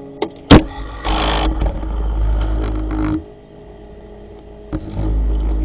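A sharp metal clunk at the lathe, then a low rumbling as the tailstock is slid along the lathe bed. The rumbling stops about three seconds in and comes back after a click near the end.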